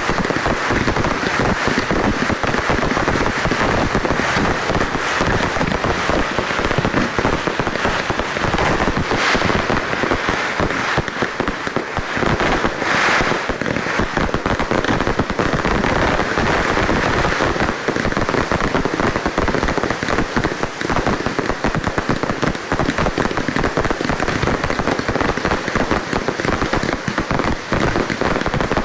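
Fireworks display: a dense, unbroken barrage of bangs and crackling, with no let-up.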